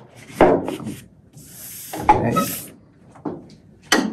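Large sheets of printing paper rustling and crackling as they are handled on the bed of a proof press, with a sharp knock near the start and another near the end. The printer is slipping extra paper under the sheet to raise the printing pressure.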